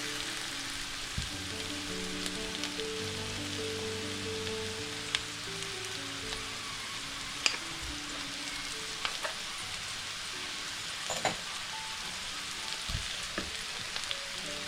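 Food frying in a pan with a steady sizzle, and a few sharp clicks of a utensil against the pan. Soft background music plays underneath.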